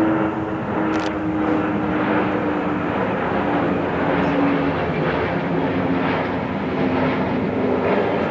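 Airbus A320neo airliner with CFM LEAP-1A turbofans passing overhead on descent, a steady jet roar with a humming tone that slowly falls in pitch as it goes by.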